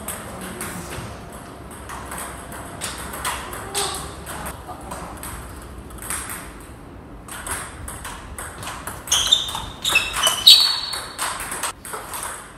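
Table tennis rally: the ball clicking off rackets and the table, with sneakers squeaking on the wooden floor. The loudest hits and squeaks come about three-quarters of the way in.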